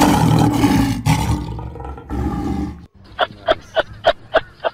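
A large animal's loud, rough roaring call, twice with a short break, then after a sudden cut a quick series of short, sharp animal calls, about three or four a second.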